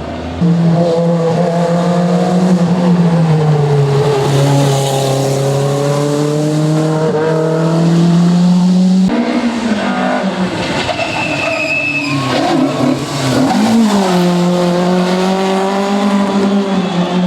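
Rally car engine running hard at high revs, its pitch sagging and climbing again as it works through the gears and corners. The sound changes abruptly about nine seconds in, and there is a brief high squeal a little after that.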